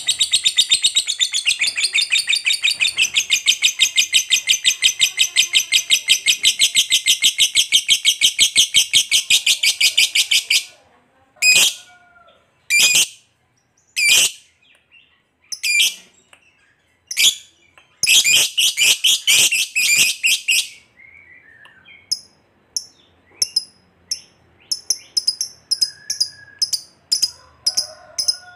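Lovebird giving its 'ngekek panjang', the long chattering trill prized in fighter lovebirds: a loud, very rapid string of shrill chattering notes for about ten seconds. Then come a few short separate calls, a second chattering burst of about two seconds, and fainter quick high chirps near the end.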